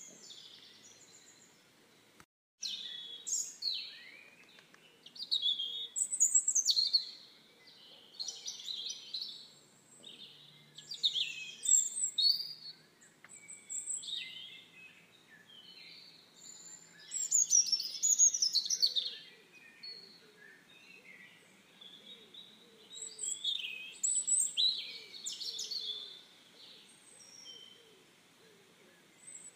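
Several small birds chirping and twittering: quick high chirps and short trills that overlap and come in clusters every few seconds.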